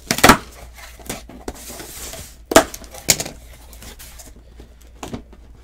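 Handling of boxes on a tabletop: a sharp knock just after the start, two more about two and a half and three seconds in and a lighter one near the end, with rubbing and shuffling between.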